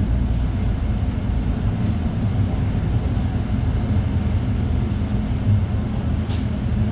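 City bus engine and road rumble heard from inside the cabin while the bus drives between stops, with one brief hiss about six seconds in.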